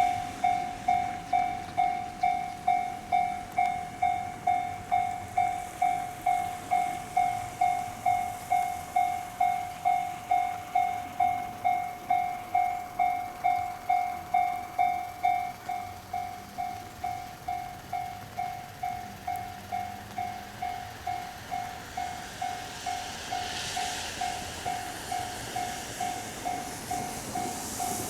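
Japanese railway level crossing's electronic warning bell ringing in steady rapid dings, about two a second. It drops to a lower volume a little past halfway, and train noise rises near the end.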